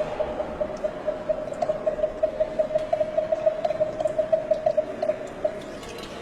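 Water whistling vessel played by tilting it back and forth, giving one steady whistle with a quick warble as the water inside shifts. It stops shortly before the end.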